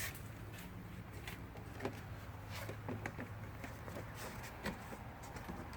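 Scattered faint taps and clicks from handling the clamped composite side rocker against the car's rocker panel while its fit is checked, over a steady low hum.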